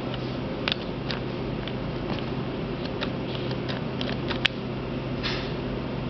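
Fingers handling a plastic luggage combination lock: a few small, scattered clicks over a steady low hum, with a brief rustle near the end.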